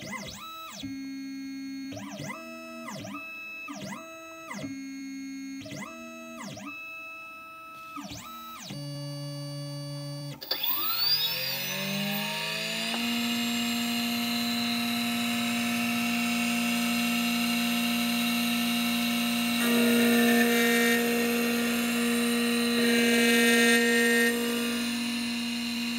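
Background music with changing synth-like notes for about ten seconds. Then an automatic key cutting machine's cutter spindle spins up with a rising whine and runs at a steady high pitch, cutting a car key blade, with the sound swelling twice as the cutter works.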